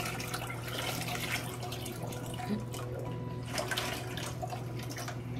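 Water pouring and splashing out of a plastic fish shipping bag through a mesh fish net into a plastic bucket, coming in uneven bursts. A steady low hum runs underneath.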